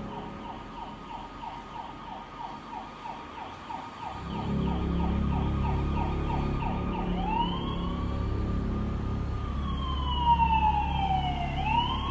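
Emergency-vehicle siren: first a fast yelp of about three pulses a second, then from about seven seconds in slow rising and falling wails. A steady low rumble joins about four seconds in.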